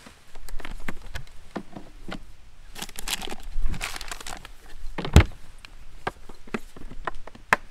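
Hard plastic YETI cooler being opened and closed by hand: clicks and knocks of the latches and lid, rustling of a paper bag lifted out, then the lid shut with a heavy thump about five seconds in, followed by a few more clicks as it is latched.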